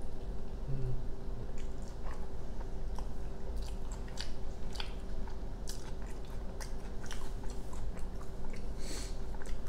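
A person biting into a flour-tortilla burrito and chewing it, with irregular small mouth clicks throughout. A steady low hum runs underneath.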